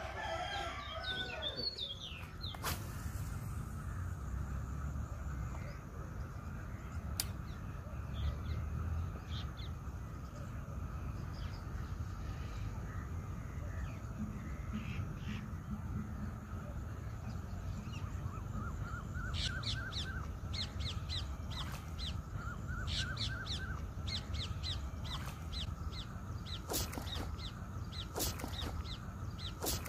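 Birds calling outdoors in quick series of short, repeated calls, louder in the second half, over a steady low wind rumble, with a few sharp clicks.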